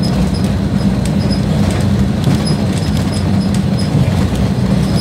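Inside a moving city bus: the engine's steady low drone and road rumble, with small clicks and short high squeaks from the rattling body.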